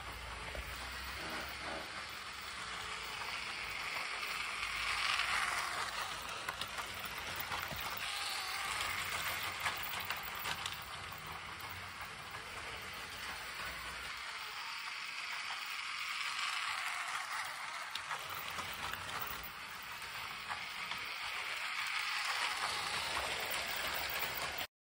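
Brick-built toy freight train running on plastic track over a wooden floor, its wheels clattering and clicking steadily over the rails and joints. The sound swells several times as the train comes close and fades as it moves off, then cuts off suddenly near the end.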